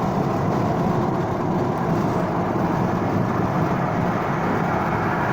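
Steady vehicle hum heard from inside a car's cabin, even and unchanging throughout.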